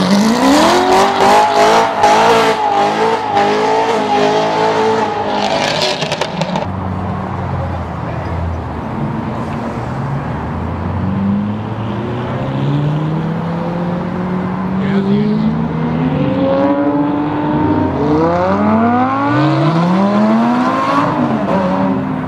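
A Corvette V8 revved hard and held at high revs for about six seconds, with crackling and crowd noise over it. Then lower engine notes of cars rolling past, and near the end a car accelerating hard, its revs climbing steeply several times before dropping off.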